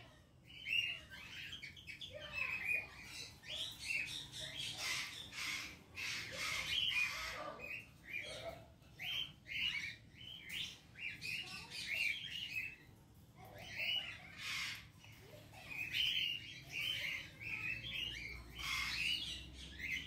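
Many aviary birds chirping: short, high chirps in quick succession, with scattered sharp clicks.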